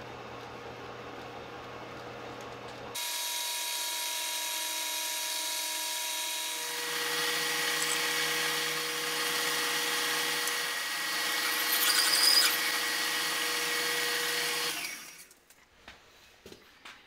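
Metal lathe running, with a twist drill held in the tailstock chuck boring into the end of a spinning metal bar: a steady machine whine with several fixed tones, louder from about three seconds in. The noise stops about fifteen seconds in, and only a few faint clicks follow.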